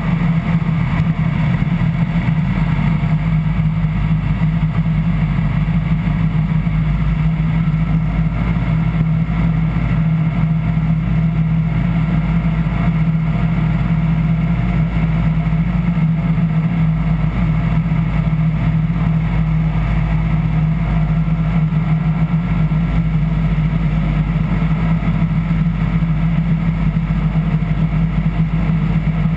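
Light aircraft's piston engine and propeller droning steadily, heard from inside the cockpit, with no change in pitch or power.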